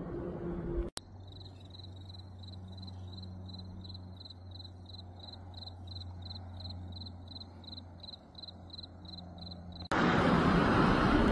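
Crickets chirping in a steady high pulse, about three chirps a second, over a low steady hum. Near the end a cut brings a much louder rushing noise.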